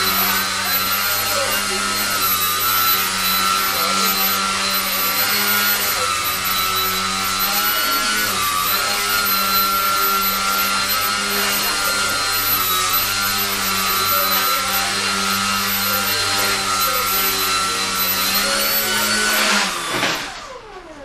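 Twin Dragon RC model helicopter hovering, its motor and rotors giving a steady, high whine; near the end it spools down, the pitch falling away as the rotors slow.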